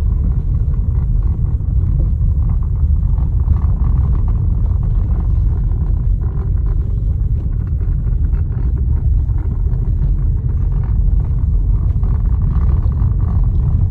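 Lada Vesta in motion: a steady low rumble with faint, irregular short knocks over it, which the owner takes for a knocking electric power steering unit.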